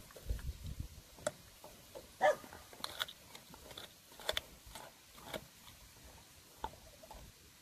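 German shepherd gnawing and crunching a raw bone, with irregular sharp cracks and crunches as its teeth work the bone.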